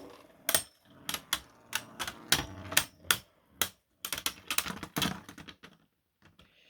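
3D-printed plastic Beyblade tops clashing in a stadium: a rapid, irregular series of sharp clacks that thin out and stop a little over five seconds in.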